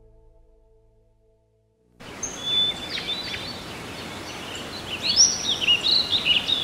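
Soft music fades out, then after a brief silence about two seconds in, outdoor ambience with a steady background hiss and several songbirds singing and chirping, growing busier near the end.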